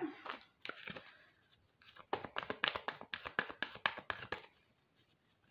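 Deck of cards being shuffled by hand: a short flurry of soft card clicks about a second in, then a longer run of rapid flicking clicks that stops a little after four seconds in.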